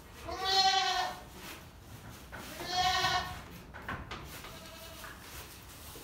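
Boer goat bleating twice, each call about a second long, with a fainter third bleat near the end.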